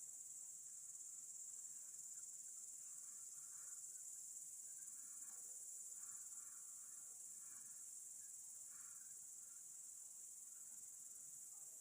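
Faint, steady, high-pitched chorus of crickets, unbroken throughout, with fainter lower sounds coming and going now and then.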